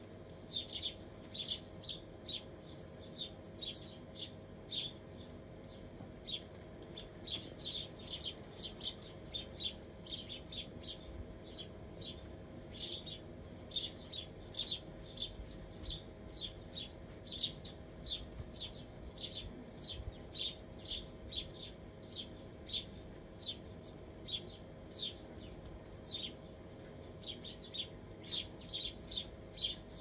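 A flock of sparrows chirping constantly: many short, high chirps in quick succession, thinning briefly in the last third.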